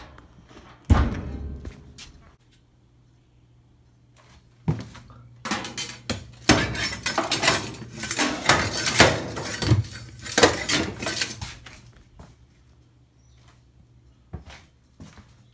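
Hard household objects banging and clattering as a room is searched: one sharp bang with a short ring about a second in, then a knock and a long stretch of rattling and knocking from about five to eleven seconds in.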